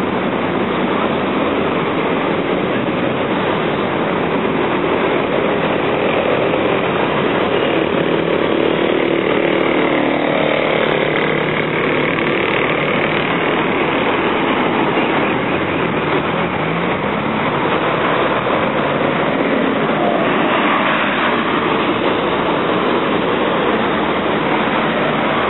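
Busy city-avenue traffic: cars and trucks passing continuously, a steady rush of engines and tyres, with a single engine note rising briefly about two-thirds of the way through.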